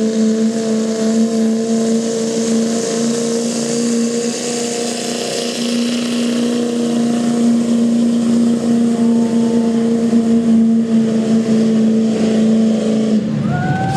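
2007 GMC pickup's engine running loud at high, steady revs under full load as it drags the pulling sled, holding one even pitch, then falling off and breaking up about a second before the end.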